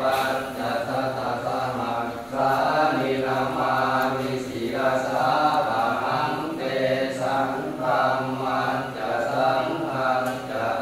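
Thai Buddhist chanting in Pali: voices reciting in a steady chant-tone, phrase after phrase, with brief pauses for breath about two and about four and a half seconds in.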